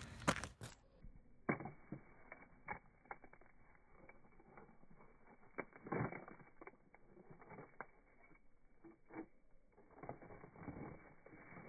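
Faint, scattered clicks and knocks of scrap metal and debris being handled while rummaging in a dumpster, with a louder knock about six seconds in.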